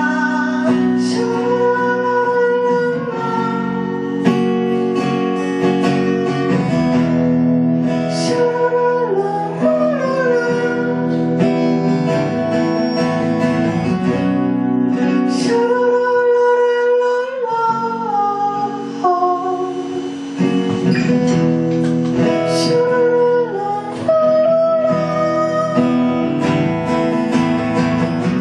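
A band playing live: strummed acoustic guitar under a melody of long held notes that slide between pitches.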